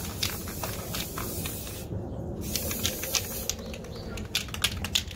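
Aerosol spray paint can spraying in short hisses that stop briefly about two seconds in. A quick run of sharp clicks comes near the end.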